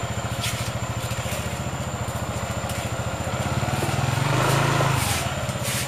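A motorcycle engine idling with a steady, rapid putter, revving up and getting louder about three to five seconds in before settling back to idle. A few light clicks are heard on top.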